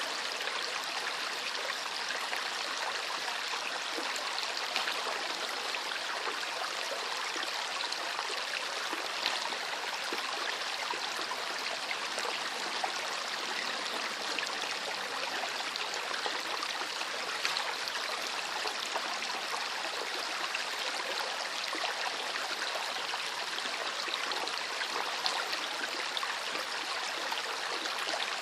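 River water running over stones: a steady rushing and babbling with small splashes scattered through it.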